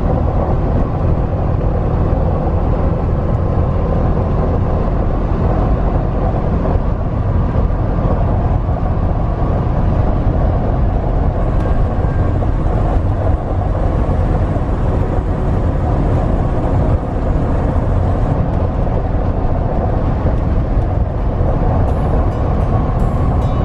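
Steady engine and tyre-on-road noise heard from inside a motorhome's cab cruising at highway speed.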